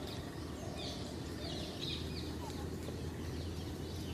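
Birds chirping in short, repeated high calls, over a low steady hum.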